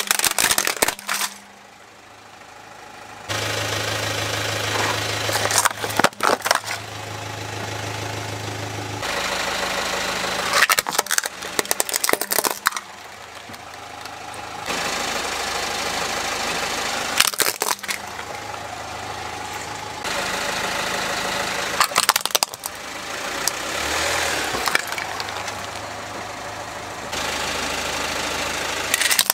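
Plastic toy vehicles cracking and crunching under a car tyre, a cluster of sharp snaps every few seconds, over the car's engine running at idle.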